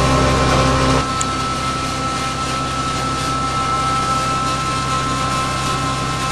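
Stainless-steel chopper/pulverizer driven by a 3 HP electric motor running steadily, a constant whine over a low hum. About a second in, the low hum drops and the machine sounds a little quieter.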